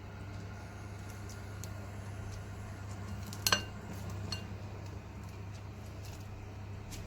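Kitchen utensils clinking: one sharp, ringing clink about halfway through and a fainter one just after, over a steady low hum.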